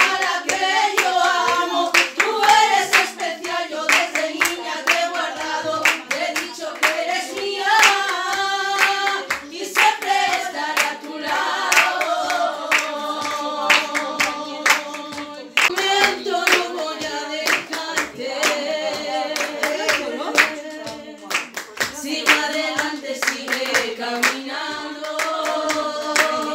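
Several voices singing a song together, kept in time by quick, steady handclaps.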